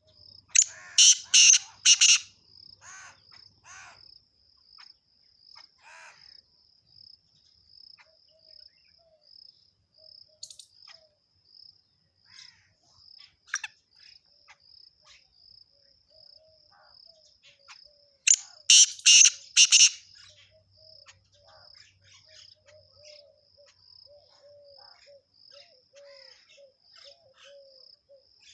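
Small songbirds chirping: loud runs of about four sharp high chirps about a second in and again about two-thirds of the way through, with fainter scattered calls between. Under them runs a steady, fast-pulsing high trill, and a lower pulsing call joins in the second half.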